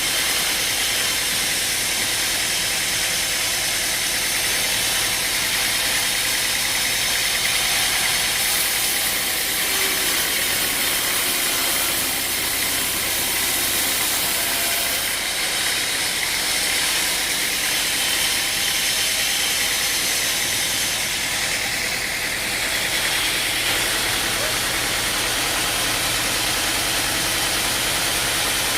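An engine running steadily under a loud, even hiss.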